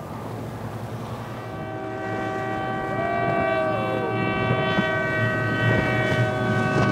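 Powerboat engines running at a steady, high pitch, fading in about a second and a half in and growing louder.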